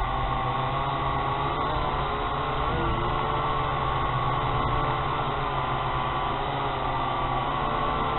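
Syma X8HG quadcopter's motors and propellers whining steadily in flight, the pitch wavering slightly as the throttle shifts, with wind rumbling on the microphone.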